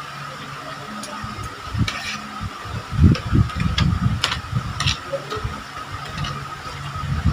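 Eating sounds at the table: uneven chewing and mouth noises close to the microphone, with scattered sharp clicks of utensils or plates, over a steady hum like an electric fan.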